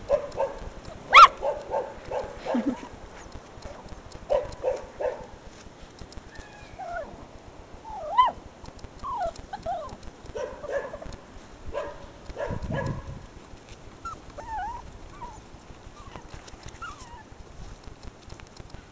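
Seven-week-old Dalmatian puppies yipping and barking in play: a run of short, sharp yips in the first few seconds, the loudest about a second in, then high whines and whimpers that rise and fall in pitch through the middle.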